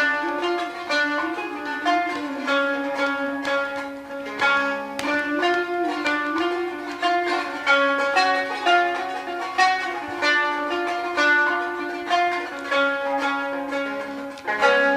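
Instrumental introduction of a Kurdish song: a plucked string instrument playing a quick run of notes over a steady held drone.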